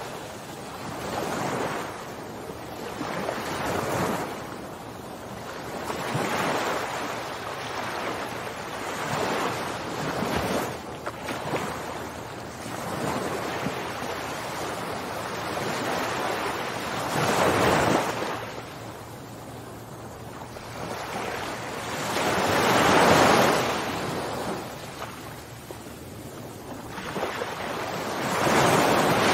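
Rushing sound of waves washing in, swelling and fading every few seconds, with no pitched music or voice.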